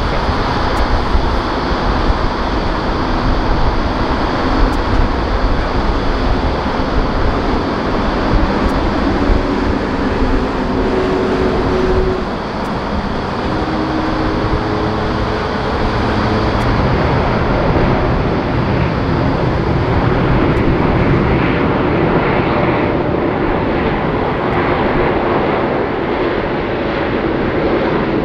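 Airbus A380 jet engines running through the flare, touchdown about halfway through and the landing rollout: a steady, loud rush of jet noise.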